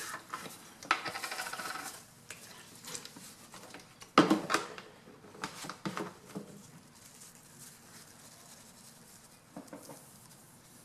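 Small handling sounds on a workbench: about a second of rapid rubbing or fine ticking, a sharp click about four seconds in, then a few lighter clicks and taps.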